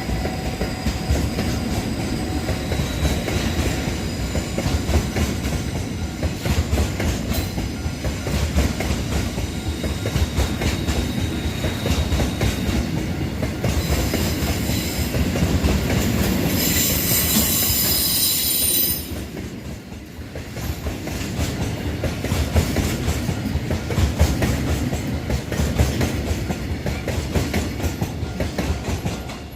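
Freight train wagons rolling past, their wheels clattering steadily over the rail joints. A high-pitched wheel squeal rises for about two seconds just past the middle.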